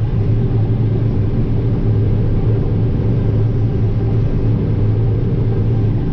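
Combine harvester running steadily while shelling corn, a loud, even drone with a strong low hum.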